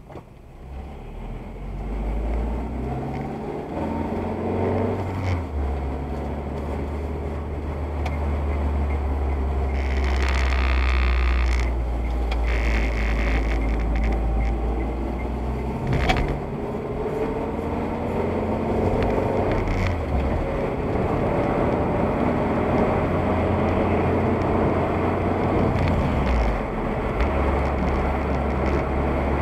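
Car driving on a wet road, heard from inside the cabin: a steady low engine and road drone with tyre hiss, growing louder as the car pulls away in the first few seconds. The hiss swells for a couple of seconds about ten seconds in, and there is a single knock about sixteen seconds in.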